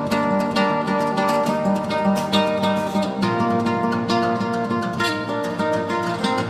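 Background music: acoustic guitar played in quick, continuous strums and plucked notes.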